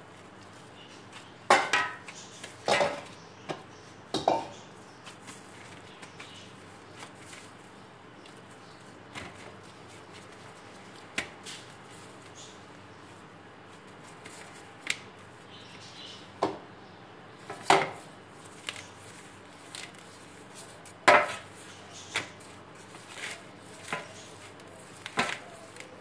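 Irregular knocks and clatters of a bowl and handfuls of pizza dough being handled on a floured stainless steel tray, louder in a cluster in the first few seconds and then spaced out, over a faint steady hum.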